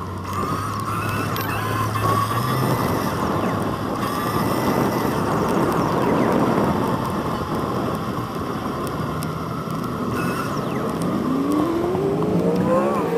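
Wind rushing over the microphone of a camera on a moving bicycle, with tyre noise from the path. A rising whine comes in near the end.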